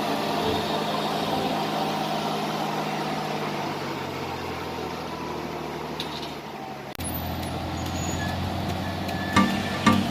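Heavy road-construction machine's engine running steadily, with an abrupt change to another steady engine hum about seven seconds in. Plucked music notes begin near the end.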